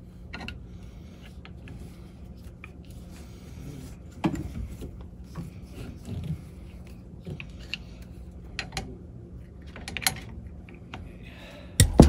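Small clicks and scrapes of a brass drain plug being loosened and unscrewed from a ball valve on a water strainer, with a sharp knock near the end, over a steady low hum.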